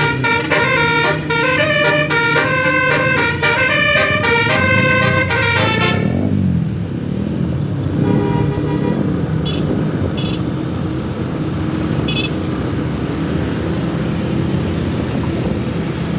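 Bus telolet basuri multi-tone air horn playing a quick melody, which cuts off about six seconds in. After it come vehicle engine and traffic noise, with three short high toots.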